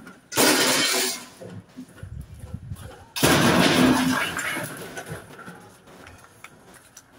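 Scrap metal being unloaded from a van: two loud crashes about three seconds apart, each clattering for about a second before dying away.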